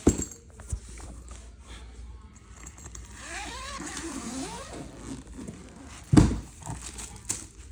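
Zipper of a replica championship belt's carry bag being opened, with rustling and handling of the bag. There is a sharp knock right at the start and a louder one about six seconds in.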